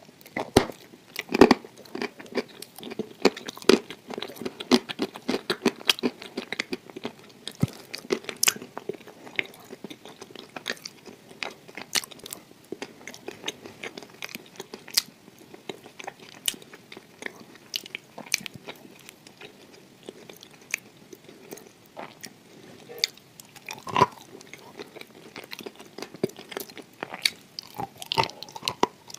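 Close-miked biting and chewing of a crumbly-coated cream dessert: dense crackling crunches for the first several seconds, thinning to scattered crunches and chewing later, with a few louder bites.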